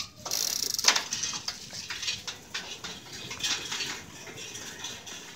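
A bicycle rattling and clicking as it is ridden over a rough concrete lane, with a sharp clatter about a second in, the sound growing fainter toward the end.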